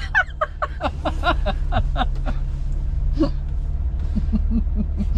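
A woman laughing hard in a quick run of short bursts, about four a second, that trails off after a couple of seconds. Lower, softer laughter comes near the end, over a steady low hum inside the car.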